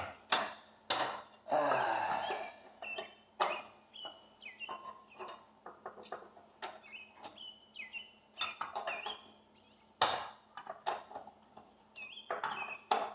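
Hand tools and lug nuts clinking and knocking on metal while a car wheel is being fitted: a string of irregular sharp clicks and clinks, with a louder knock about ten seconds in.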